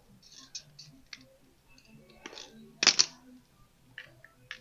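Light handling noises: small clicks and rustles as fingers work thin plastic tubing and safety wire at a wheel spinner, with one louder, brief rustle about three seconds in.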